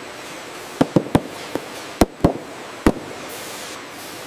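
Factory production-line machinery: a run of about seven sharp, irregular clacks over a steady hiss in the first three seconds, then only the hiss.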